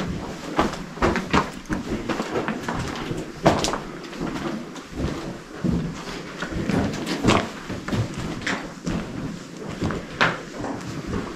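Footsteps crunching and scraping over loose rock and grit on a tunnel floor, with irregular knocks from stepping on rubble.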